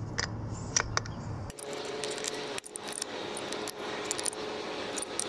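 Irregular light metallic clicks and clinks of a hand wrench working the nuts that clamp the carburetor to the intake manifold on a Yamaha Warrior 350 quad as they are snugged down.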